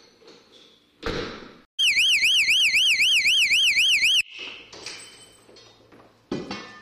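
Electronic alarm siren warbling rapidly up and down, about four warbles a second, for about two and a half seconds before cutting off abruptly. A thump comes just before it and another near the end.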